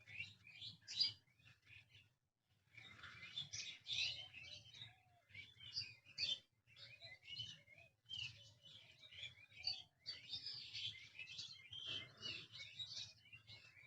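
Several songbirds chirping and trilling in quick, overlapping calls, broken by a short silence about two seconds in.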